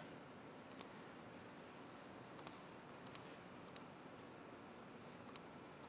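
Faint, sharp computer clicks at a laptop, about six or seven of them spread over the few seconds, some in quick pairs, over quiet room tone.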